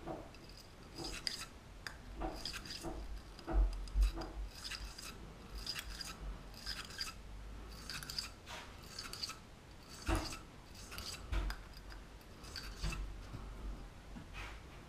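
Wire bore brush on a cleaning rod scrubbing back and forth through a pistol barrel: a run of short metallic scraping strokes, one or two a second, with a few dull knocks.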